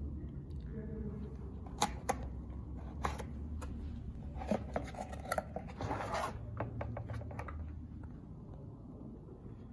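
Cardboard box and paper packing handled while a vacuum power nozzle is unpacked: a few sharp cardboard clicks and taps about two and three seconds in, then a stretch of rustling and sliding of paper and cardboard with more clicks around the middle, dying away near the end.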